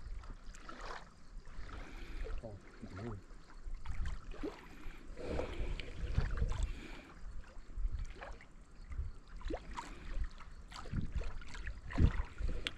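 Wind gusting on the microphone, with small wind-driven waves lapping and splashing at the water's edge in irregular slaps.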